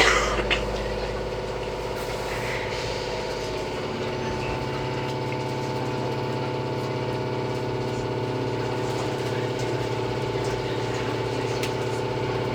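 Steady hum and rumble of an Izuhakone Railway 3000-series electric train heard from inside the car, with a couple of sharp clicks at the very start.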